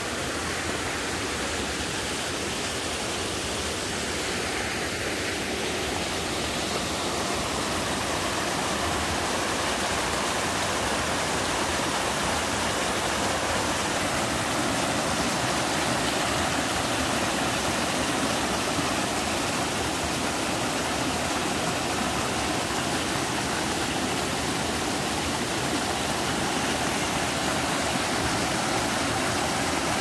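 Mountain stream rushing and splashing down small cascades between boulders, a steady roar of water that grows a little louder over the first several seconds.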